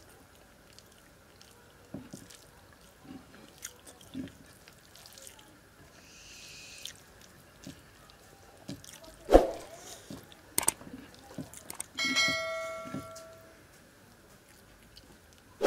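Close-up eating sounds: a man chewing mouthfuls of chira pulao (flattened-rice pulao) while his fingers mix and squish the rice on a clay plate, with soft scattered clicks and smacks. Past the middle there is a loud knock, then a sharp click, then a bell chime that rings and fades over about a second and a half, the sound of a subscribe-and-bell overlay.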